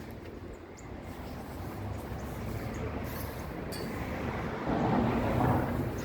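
Outdoor traffic noise with a steady low rumble, a passing vehicle getting louder about five seconds in before easing off.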